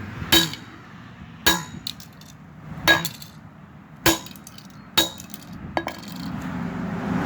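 A toy car being hit over and over, about six hard blows roughly a second apart, each with a brief ringing clink.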